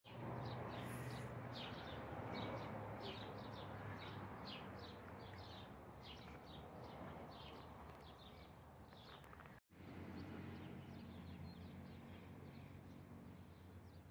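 Birds chirping outdoors in quick repeated calls over a faint steady background noise. The sound drops out for an instant about ten seconds in, and the chirps are sparser afterwards.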